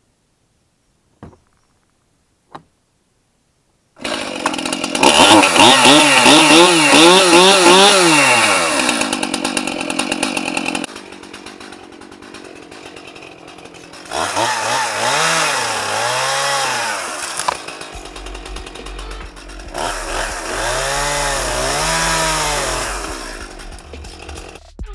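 Two faint clicks, then about four seconds in a Stihl two-stroke chainsaw comes in loud, its revs swinging up and down while cutting into the leaning tree's trunk. It drops back to a lower, quieter running level for a few seconds, then revs up again in two long bursts.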